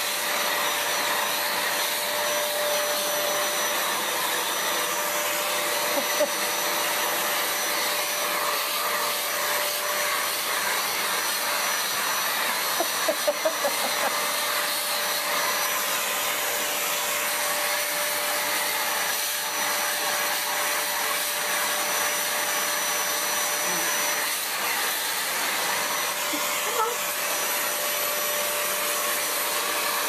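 Vacuum cleaner running steadily with a constant whine, used to hoover a cat's fur. A brief cluster of small knocks about halfway through.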